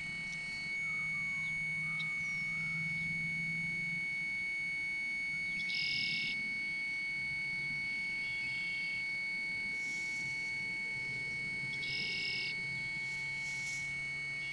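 Electronic improvisation on battery-powered gear: a steady, piercing high sine-like drone over quieter held tones and a low hum. Short bursts of hiss come twice, about six seconds apart.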